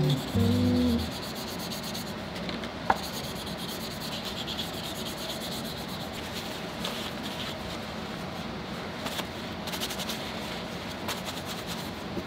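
Steady hand rubbing on the wooden forearm of a Stevens Favorite rifle as its last coat of finish is worked in, with one sharp click about three seconds in. Music fades out in the first second.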